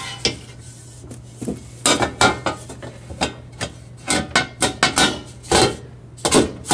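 Metal screen printing frame knocking and clattering against the clamp bars of a pneumatic screen stretcher as it is set in and shifted into place. It makes a string of sharp, irregular knocks over a steady low hum.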